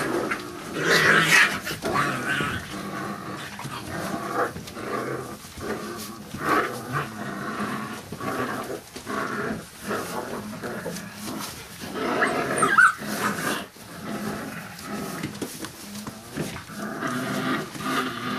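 Five-week-old bandog puppies nursing at their mother, making a busy, irregular stream of short cries, whimpers and grunts. There is a brief sharp squeak about two-thirds of the way through.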